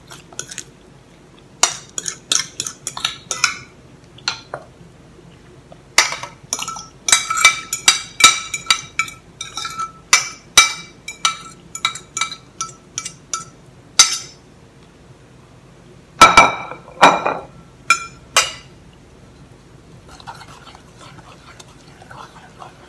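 Wooden spoon scraping mashed banana off a ceramic plate into a metal saucepan: a run of sharp clinks, each ringing at the same pitch, with a few louder knocks near the three-quarter mark. Near the end it turns to soft stirring in the pan.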